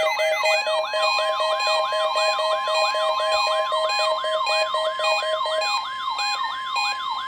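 Weather radio alert alarms sounding together. A warbling siren-like tone sweeps up and down about three times a second. A steady high alert tone joins about a second in, and a rapid pulsed beep stops a little before the end.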